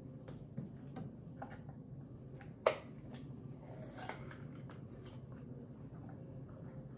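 Handheld lever-type citrus squeezer pressing a lime half: scattered light clicks and knocks of its hinged handles, one sharper click a little under three seconds in, and a brief squelch of juice about four seconds in.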